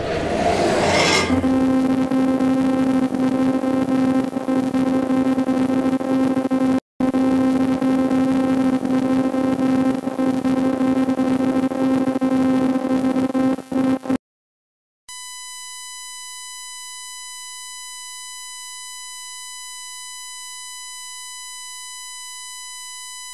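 Synthesized promo sound design: a steady electronic drone with a stack of overtones, which breaks off for a moment about seven seconds in and stops about two-thirds of the way through. After a second of silence comes a long, steady, high electronic beep tone.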